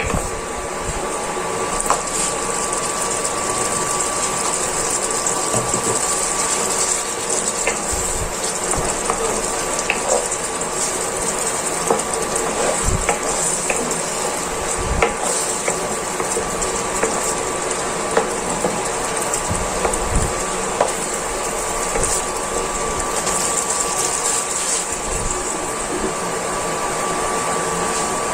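Sardines in tomato sauce simmering and bubbling in a nonstick frying pan, over the steady whirr of a portable electric cooktop's cooling fan, with scattered light clicks and scrapes from a wooden spatula.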